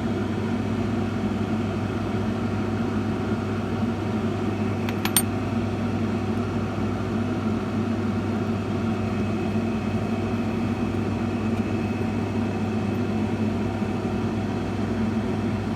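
Steady low machine hum, with one short sharp click about five seconds in.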